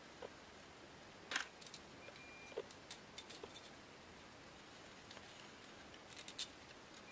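Light handling clicks and rattles as a tape measure is pulled out and held against a broken graphite fishing rod, with one sharper click about a second and a half in and a few more clustered near the end.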